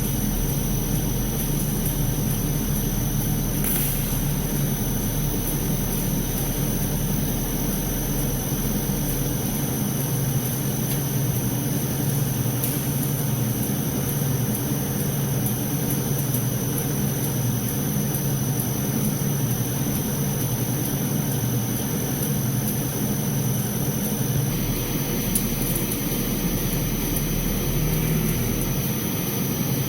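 Automatic perforated filter tube spiral welding machine running, a steady mechanical hum with a constant hiss over it.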